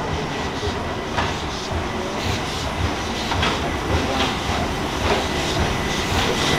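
Train wheels rolling along the track with a steady rumble, clicking over rail joints about once a second.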